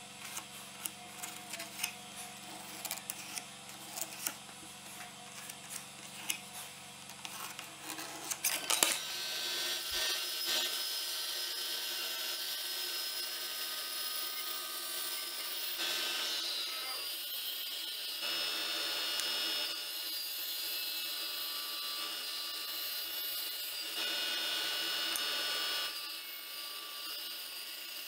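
Band saw cutting a wooden board: a steady hiss from the blade with a faint whine, its level stepping up and down a few times. Before it, for about the first nine seconds, there are scattered light clicks and knocks over a low hum.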